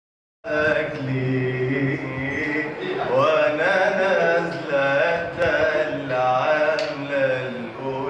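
A man singing unaccompanied: a wordless opening of long, held notes that slide and bend between pitches.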